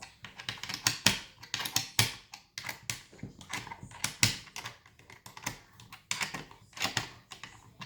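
Quick, irregular clicks and knocks from hands handling the newly assembled electric chainsaw and its parts.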